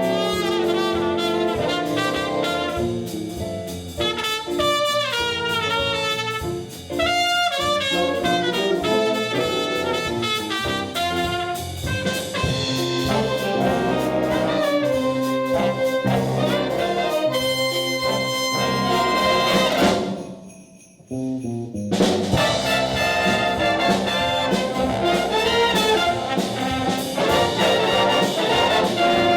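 Brass ensemble music with trumpets and trombones, with a brief pause about two-thirds of the way through before the band comes back in.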